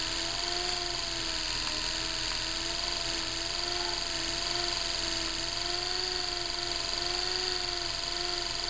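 Electric car conversion's DC traction motor spinning free with no load, powered off a 12-volt car battery through jumper cables: a steady hum whose pitch wavers slightly, the motor turning smoothly on its new bearings.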